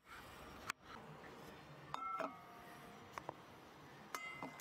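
A few faint knife taps on a plastic cutting board. Then a small stainless steel bowl clinks and rings briefly twice, about two seconds in and again near the end, as the cutting board knocks against it to tip chopped tomato in.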